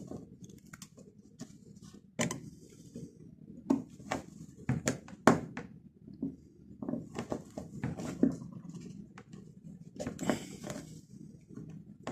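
Irregular light clicks, taps and scrapes of hand work on a small box piece, with a few sharper knocks scattered through.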